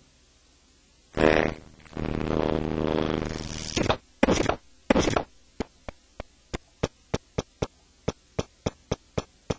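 A spoken phrase, "tecnologia digital", played back through Sound Forge's Gapper/Snipper effect. For the first few seconds it comes out as a harsh, buzzy chopped drone. From about halfway the snipper cuts nearly all of the audio away, leaving a steady stream of short blips about four a second.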